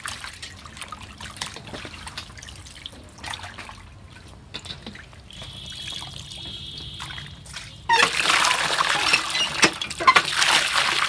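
Raw meat being washed by hand in a metal bowl of water: soft squelching and small splashes. About eight seconds in, water starts pouring into the bowl with a loud, steady rushing splash.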